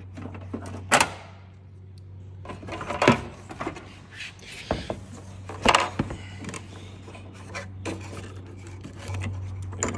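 Hard plastic clicks and snaps, three of them loud, with rubbing and scraping as a car headlight assembly is unclipped and its bulb connector handled. A steady low hum runs underneath.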